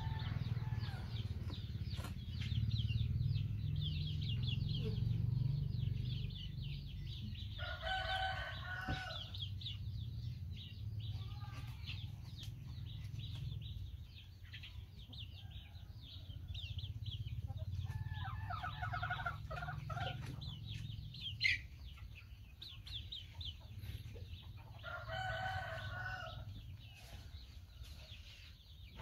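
A rooster crows three times, each crow lasting about two seconds, over constant high chirping in the background. A few sharp knocks come from a cleaver chopping into a coconut, the loudest about two-thirds of the way through.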